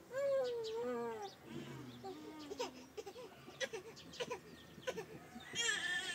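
A goat bleating: a wavering call at the start and a lower one about two seconds in, with a string of short high chirps in between, then another long wavering call near the end.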